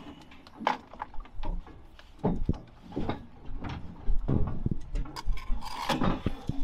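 Bricklayer's steel trowel scraping mortar and tapping bricks as they are buttered and set in a soldier course: a run of irregular knocks and scrapes, busier and louder from about two seconds in.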